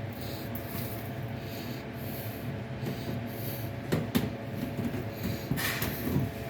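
Steady low hum with a few short knocks and scrapes, about four seconds in and again near the end, from hands working around the dryer and its vent hose.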